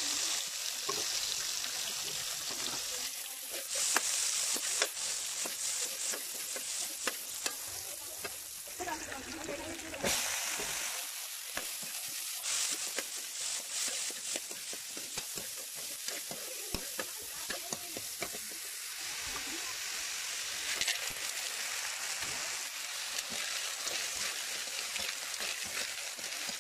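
Food sizzling in a hot metal wok while a metal ladle stirs it, with frequent clicks and scrapes of the ladle against the pan. The sizzle surges louder a few times as ingredients go in.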